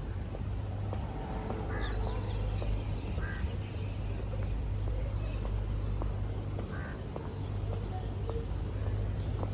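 Outdoor ambience with a steady low rumble and scattered short bird calls.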